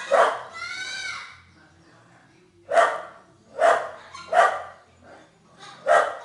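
Small dog barking in short single barks, about five of them spaced roughly a second apart. A drawn-out yelp that rises and then falls in pitch comes just after the first bark, followed by a lull of over a second before the rest.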